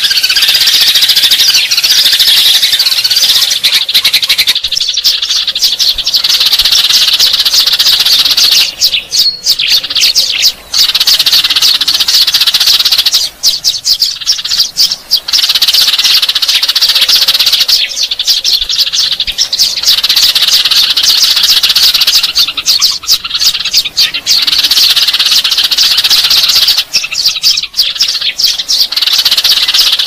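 Eurasian tree sparrows chirping in a loud, dense, unbroken chorus, with brief lulls every few seconds. It is a sparrow lure call (suara pikat), played to draw sparrows in.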